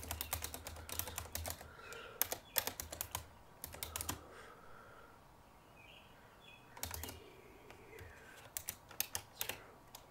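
Typing on a computer keyboard: quick runs of key clicks, dense in the first couple of seconds, then shorter scattered bursts with a pause of a second or two in the middle.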